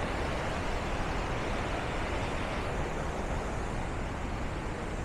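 Steady rushing noise of Montmorency Falls' falling water, even and unbroken.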